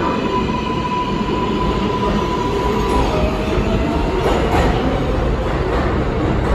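R142A subway train pulling out and rolling past, its last car going by about four seconds in. A steady high electric whine stops about halfway through, over the constant rumble of the wheels on the rails, with a few clicks from the rail joints near the end.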